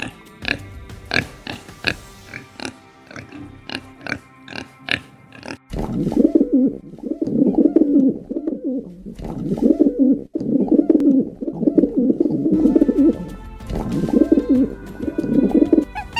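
Pigeons cooing in repeated low, rolling phrases from about six seconds in, after a run of short, sharp clicking sounds about three a second.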